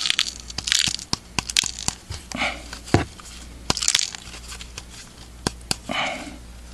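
Paper crinkling with scattered light clicks and taps as the cut-open firework shell and its contents are handled.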